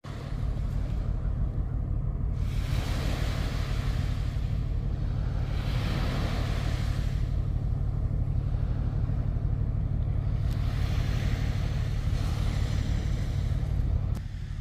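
Wind buffeting the microphone with a steady low rumble, and a rushing hiss of water that swells and fades every two to three seconds as a container ship's bow wave and the waves pass the rocky shore.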